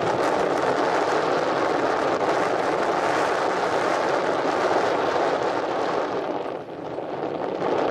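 Steady wind noise buffeting the microphone, with a short drop in level about two thirds through.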